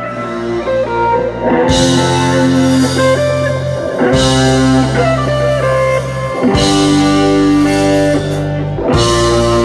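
Live electric guitar playing a melodic instrumental line alone, then bass guitar and drum kit come in under it less than two seconds in. The full band carries on, with a cymbal crash about every two and a half seconds.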